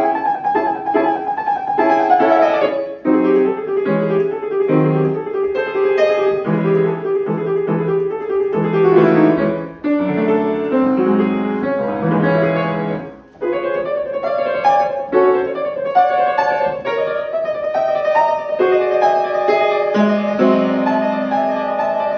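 Piano playing a melody over chords, as in practising a piece, with two short breaks in the playing near the middle.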